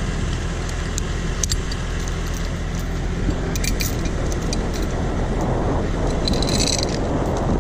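An engine idling steadily at low speed, with a few light metallic clinks and rattles over it.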